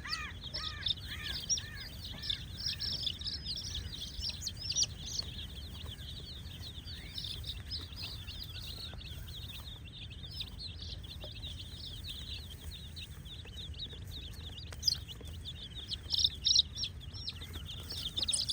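A crowd of baby chicks peeping nonstop, many short high chirps overlapping. In the first two seconds a lower, arching call repeats two or three times a second, and the peeps grow louder again near the end.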